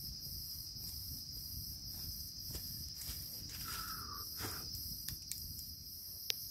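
Night insects chorusing: a steady high buzz with a faster, evenly pulsing chirp above it. A brief call sounds about four seconds in, and a few sharp ticks come near the end.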